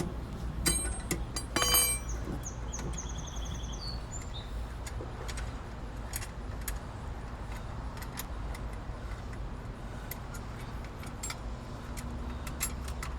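Two sharp metallic clinks about a second apart, then a short high bird trill; faint scattered ticks over a steady low outdoor rumble.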